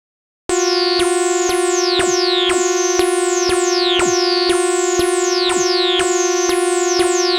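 Animated railroad crossing warning signal made strange: a steady synthesizer tone with a falling chirp sounding about twice a second, in place of the usual kan-kan bell. It starts about half a second in.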